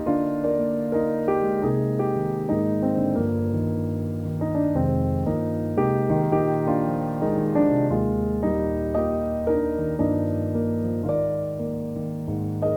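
Soft background piano music, a steady flow of gentle notes and chords.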